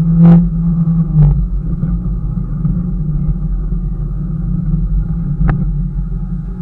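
Car interior while driving: steady engine and road rumble, with a few short sharp knocks, one near the start and a clear one about five and a half seconds in.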